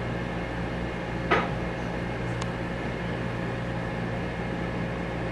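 Oven running with a steady electrical hum and fan-like noise while the bread bakes, with one short click about a second in.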